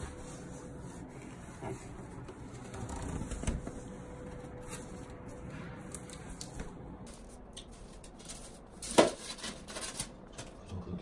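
Stiff black board panels being handled and rubbed, with a run of clicks and taps in the second half and one sharp knock about nine seconds in, over a faint steady hum.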